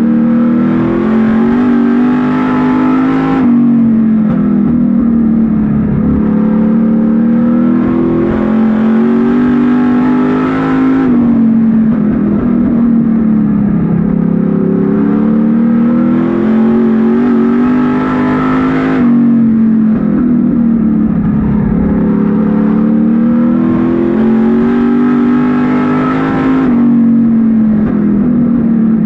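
Street stock race car's engine heard from inside the cockpit, lapping a short oval: it winds up in pitch under full throttle, then the throttle closes abruptly and the pitch falls through the turn. This happens four times, about every seven to eight seconds.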